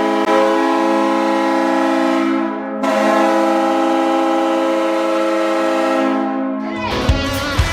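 New York Islanders arena goal horn sounding two long, steady blasts, with a short break between them. Near the end the goal song starts, with drum beats.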